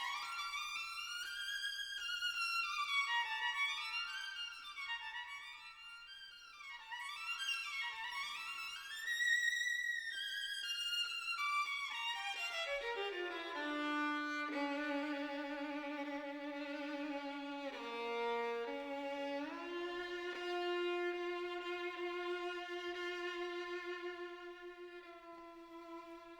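Background music: a solo violin playing sweeping runs up and down, then slower held notes.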